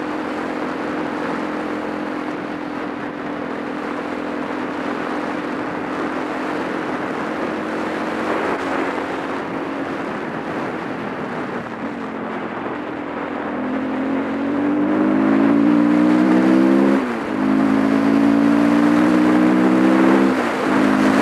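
Supermoto motorcycle engine running at a steady cruise under a rush of wind noise. About two-thirds of the way in it accelerates hard, its pitch climbing and then dropping sharply at an upshift, climbing again and dropping at a second shift near the end.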